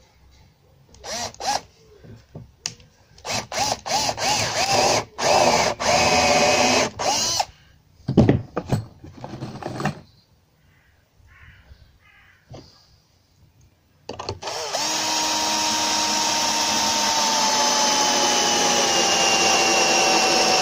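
Cordless drill boring a pilot hole into softwood timber in short stop-start bursts, its whine rising each time it spins up. After a pause the drill runs for about six seconds without stopping, driving a long wood screw into the timber, its pitch sinking slowly as the screw tightens and loads the motor.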